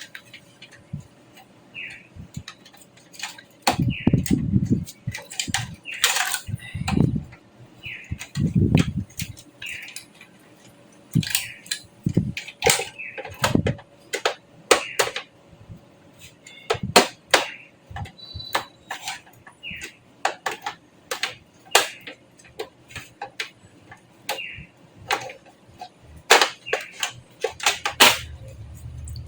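Irregular clicks, taps and knocks from computer parts and a desktop PC case being handled, with a few duller thumps in the first several seconds.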